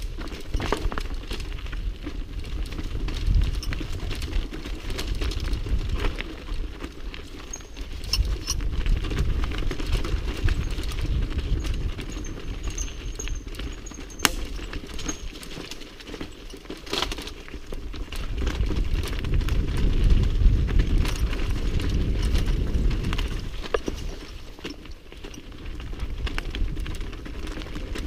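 Mountain bike running fast down a rocky trail: tyres crunching over loose stones, with the bike rattling and clicking over the bumps. A low rumble on the microphone swells louder a few times.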